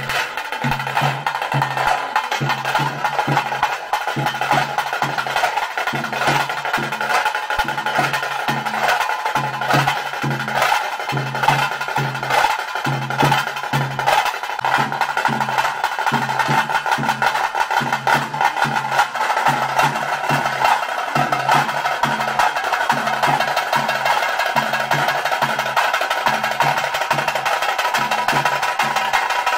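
Tase drums played with sticks in a fast, dense beat for a pili nalike tiger dance, with a deeper drum keeping a steady pulse underneath.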